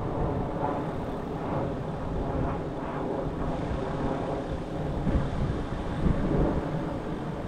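Airplane flying overhead, heard as a steady drone.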